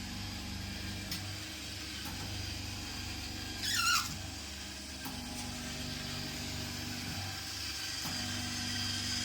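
Vacuum-and-roller body-contouring handle running on the skin: a steady motor hum whose tones switch on and off every second or two with the pulsed suction, and a short falling squeal about four seconds in.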